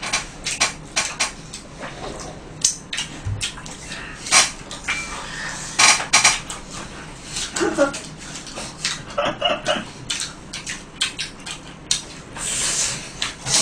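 Close-miked eating of crispy fried chicken: a string of irregular sharp crunches and clicks from chewing and biting, mixed with chopsticks and the paper box clattering.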